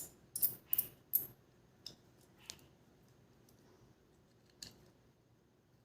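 Small sharp clicks and taps of a small screwdriver, tweezers and tiny screws on a camera's hard plastic and metal parts: four quick clicks, then three lighter ticks spread out.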